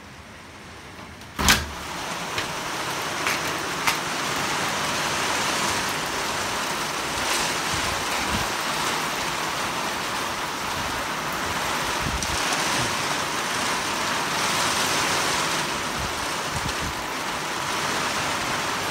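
Heavy rain falling steadily onto a brick-paved patio and lawn. The rain is muffled at first, then after a sharp click about a second and a half in, as the door opens, it comes in much louder and stays loud.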